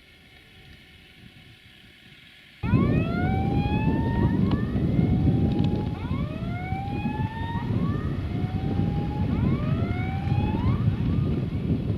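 Duewag BR628 diesel multiple unit passing close, a loud low rumble starting abruptly a few seconds in, with a series of rising whines repeating about once a second over it.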